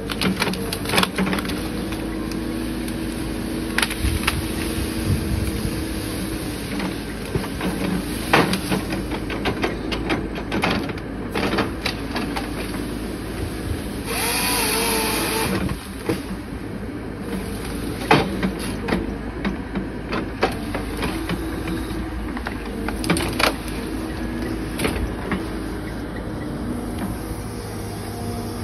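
CAT 311F excavator's diesel engine running steadily while its hydraulic grapple saw works through brush, with sharp cracks of branches snapping again and again. About fourteen seconds in, the saw runs through a trunk for about a second and a half with a loud whine.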